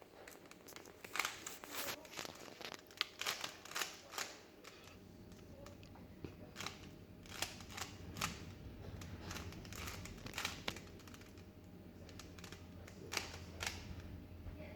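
Plastic Rubik's cube being turned by hand: quick irregular clicks and clacks of the layers snapping round, coming in flurries with short pauses between, over a faint steady hum.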